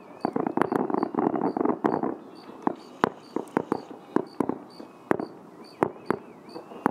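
Aerial fireworks going off. A dense stretch of crackling lasts about two seconds, then separate sharp cracks and pops follow, two or three a second.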